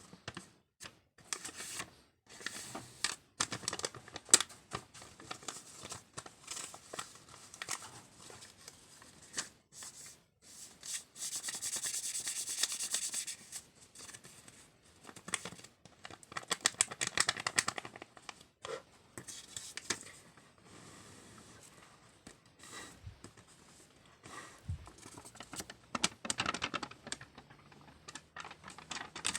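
A paper banknote being crinkled and rubbed in irregular bouts of crackling. A little before halfway there is a longer, steadier rustle, and later come quick runs of crackles.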